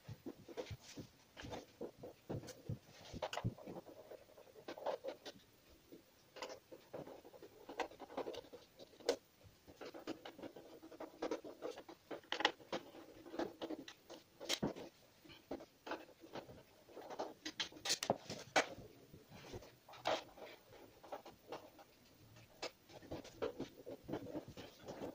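Scattered light taps, knocks and scraping from handling a bare LG LED TV panel with its circuit boards exposed, as it is worked on by hand and then shifted and tilted.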